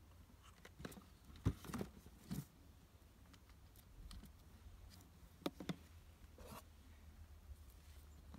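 Scattered clicks and knocks of a new Sterwins PCS2-35.3 chainsaw's plastic body and metal guide bar being handled as the saw is readied for fitting the bar and chain. The sharpest knock comes about a second and a half in.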